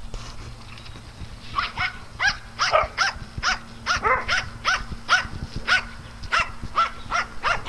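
A dog barking over and over in short, fairly high-pitched barks, two or three a second, starting about a second and a half in.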